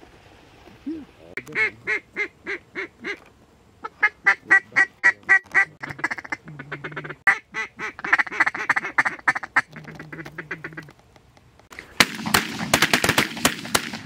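Rapid runs of duck quacks, several short fast series, then a volley of shotgun fire, many shots in quick succession, in the last two seconds.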